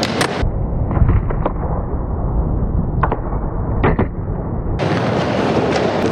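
Skateboard wheels rolling with a heavy rumble around a skate bowl, broken by several sharp clacks of the trucks and board striking the coping and ramp surface.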